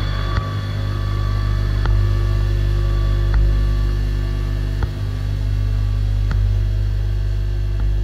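Ambient drone from guitar effects pedals: a steady low hum with several held tones above it, and a few faint clicks spaced about a second and a half apart.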